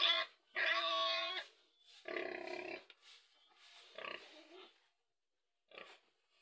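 Pig grunting in the pen: about five separate calls, the longest nearly a second long, with a brief one near the end.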